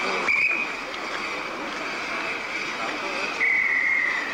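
Guard's hand whistle blown beside a waiting train: a short shrill blast just after the start, then a longer, slightly wavering blast near the end, the signal that the train is ready to depart.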